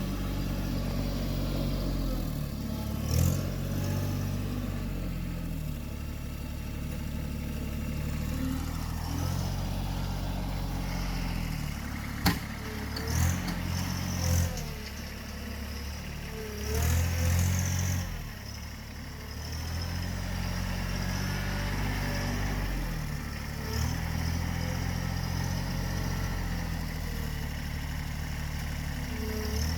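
TYM 264 compact tractor's diesel engine running and working a backhoe, its speed sagging and recovering every few seconds as the hydraulics load it. A few metallic clanks from the backhoe, one sharp one about twelve seconds in.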